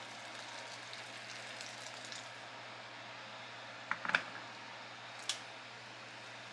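A few light knocks and clicks of kitchen handling: a quick cluster about four seconds in and a single click a second later, over a steady background hiss.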